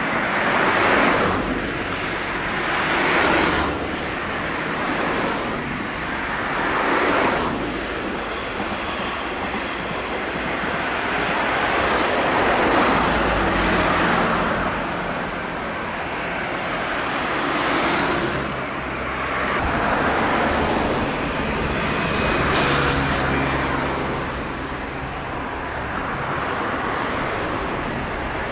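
Road traffic passing by, one vehicle after another rising and falling in a whoosh every few seconds, with a steady low engine hum under it through the middle stretch.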